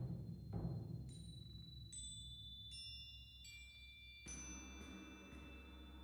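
Solo percussion: two deep drum strokes at the start, then a slow run of about six high, struck metallic tones that ring on and overlap, with a stronger stroke about four seconds in.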